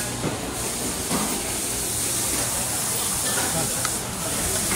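Steady hiss of outdoor street ambience, with faint voices of passers-by.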